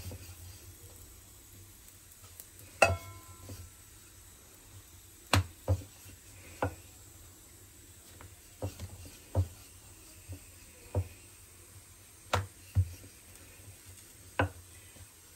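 Wooden rolling pin rolling out a stuffed paratha on a round board, with scattered short knocks and taps as the pin and board shift. The loudest knock, about three seconds in, has a brief ringing clink.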